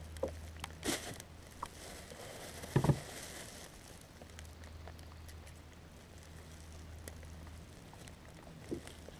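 Faint, scattered knocks and taps on the plastic kayak, the loudest a low thump about three seconds in, with a smaller one about a second in, over a low steady hum.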